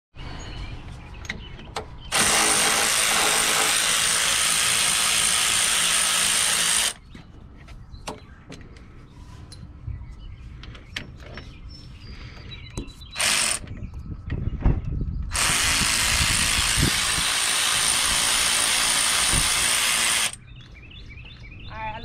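Cordless electric ratchet spinning out the Tahoe's already-loosened front brake caliper bolts. The motor runs steadily for about five seconds starting about two seconds in, gives a brief burst a little after halfway, then runs again for about five seconds from about fifteen seconds in. Light clicks and knocks of tool handling fill the gaps.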